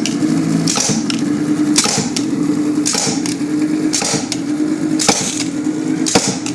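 Electro-pneumatic rhinestone-chain cutting machine running its automatic cutting cycle: a sharp clack with a hiss of air about once a second, over a steady machine hum.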